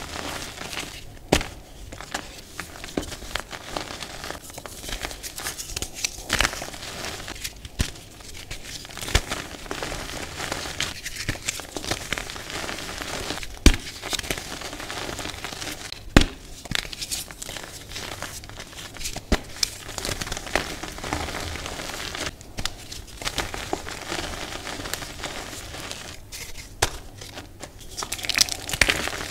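Hands crumbling and crushing blocks of green-dyed reformed gym chalk: a continuous crunching and crackling, broken by sharp snaps as pieces break, the loudest about halfway through.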